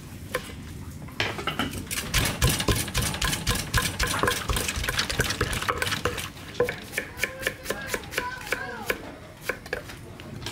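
A wooden pestle knocking and working ingredients in a clay mortar while papaya salad is made: a dense run of rapid knocks starting about a second in, thinning to sparser knocks and clicks in the second half.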